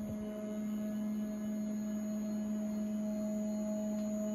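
LowRider 3 CNC plasma table's Z-axis stepper motors whining at one steady pitch as they raise the torch carriage toward its home switch during homing.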